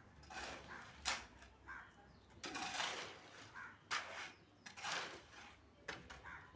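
Faint construction work: a few sharp knocks at irregular intervals, with scraping swishes in between.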